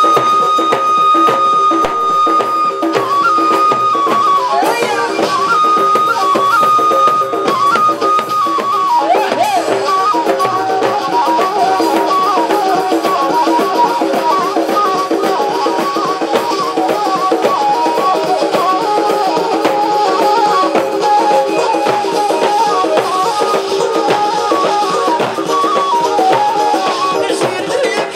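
Live Tunisian folk music: double-headed tabl drums and a drum kit beat a steady rhythm under a melody line that holds one high note for the first several seconds, then moves into a running tune.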